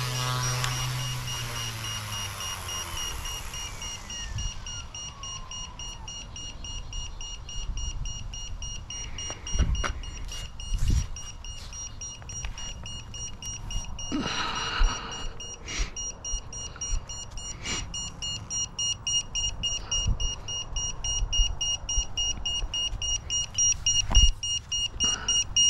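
FW200 RC helicopter's rotor and motor spinning down, the whine falling in pitch over the first few seconds. Then a rapid, steady electronic beeping sets in and keeps going, a low-battery warning, with a few knocks and handling sounds as the helicopter is picked up near the end.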